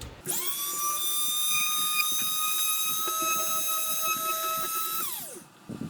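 A small high-speed electric motor spinning up to a steady high whine, holding for about four seconds, then winding down.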